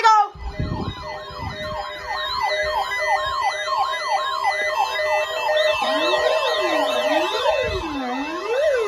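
Several electronic sirens sounding together: a fast yelping warble, joined about six seconds in by a slower wail that rises and falls about once a second.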